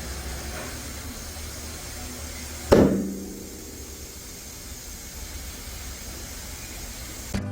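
A single sharp knock a little under three seconds in, ringing briefly, over a steady low background hum.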